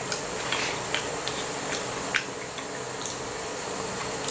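Chewing fried slimy spike-cap mushrooms: soft, irregular mouth clicks about one or two a second over a steady background hiss.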